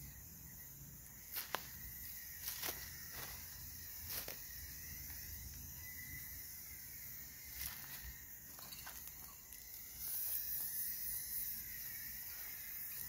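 Aerosol can of Krylon Color Max gloss black spray paint, worked with a trigger grip handle: a few short clicks and spurts in the first half, then a steady spray hiss from about ten seconds in.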